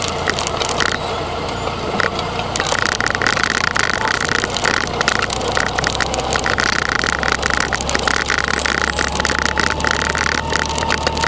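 Motorcycle engine running steadily as the bike rolls slowly, with a fast clicking rattle close to the microphone.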